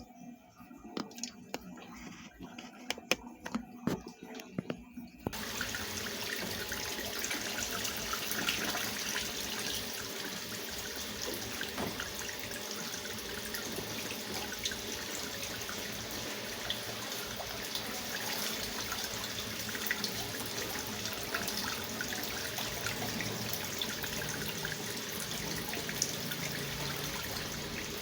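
Consul CWS 12 washing machine taking in water: about five seconds in, water starts rushing steadily into the tub and keeps flowing. Before that there are only scattered light clicks and knocks.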